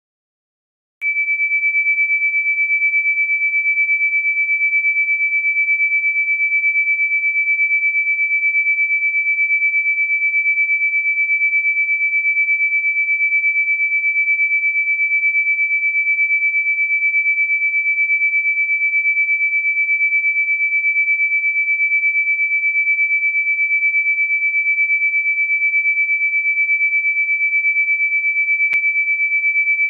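A steady, high-pitched pure electronic tone, a single unwavering pitch, starting about a second in and holding without change, played as a 'healing' frequency.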